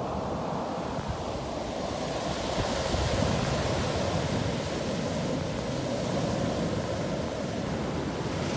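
Ocean surf breaking and washing up the sand, a steady rush that swells about three seconds in.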